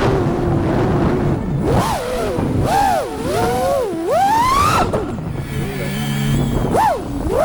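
FPV freestyle quadcopter's Xing 2 2207 1850kv brushless motors and propellers whining, the pitch sweeping up and down again and again with the throttle. It drops lower and steadier for a second or so near the end, then a quick sharp rise and fall.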